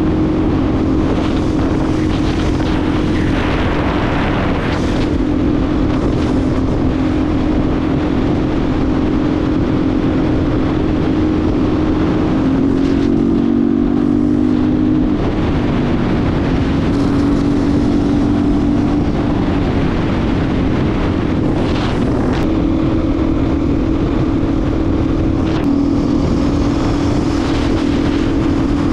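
Dirt bike engine droning steadily at highway cruising speed, with wind rushing over the microphone. The engine note drops for a few seconds about halfway through, then settles back to its steady pitch.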